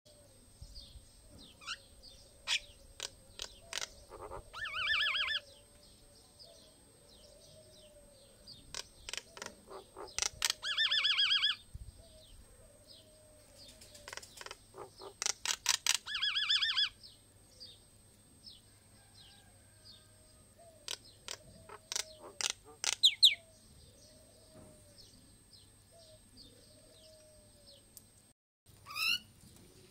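Myna bird calling: runs of sharp clicks that speed up into a rapid, pulsing warble, three times over, with further clicks and quick rising whistles later on.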